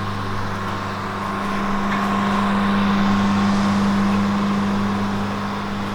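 Grizzly 14-inch resaw band saw running steadily: a low motor hum under a constant whir, swelling slightly in the middle.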